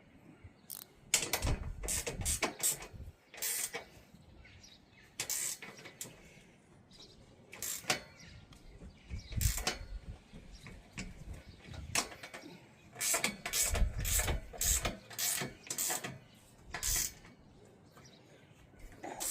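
Ratchet spanner tightening the bolts of roof-rack brackets: irregular bursts of quick ratcheting clicks and metal scraping, with short pauses between them.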